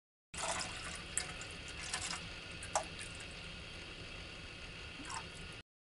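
A thin stream of water poured from a plastic bottle into a plastic cup: a steady trickling splash that starts and stops abruptly, with a few sharp clicks along the way.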